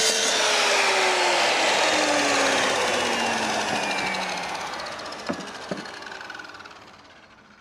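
Electric power saw cutting a wooden board. Its motor is already running at the start, then slowly drops in pitch and winds down, fading out. Two sharp knocks come a little past halfway.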